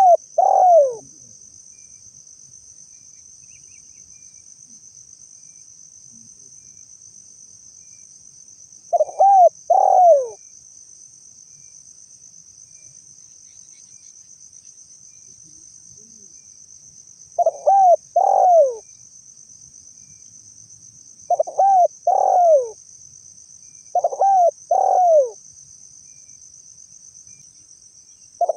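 Spotted dove cooing: short phrases of two or three notes, each note arching and falling in pitch, repeated every few seconds, about five times. A steady high insect drone runs beneath.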